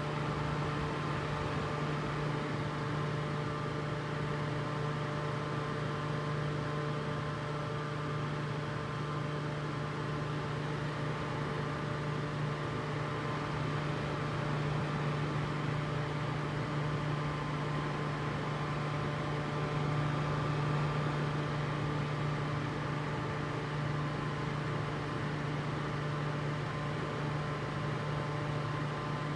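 A fan running steadily: a constant hum with a strong low tone and a few fainter, higher whining tones over an even rushing hiss.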